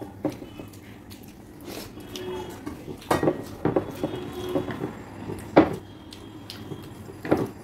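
Two people eating rice by hand from plates: chewing and mouth sounds, with several sharp clicks and knocks of fingers and food against the plates. The loudest knock comes about two-thirds of the way in.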